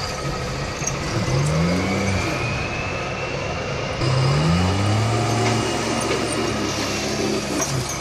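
Heavy diesel engine of a tracked log loader revving up under load as the grapple boom works, rising in pitch and then holding, twice, with a faint high whine above it.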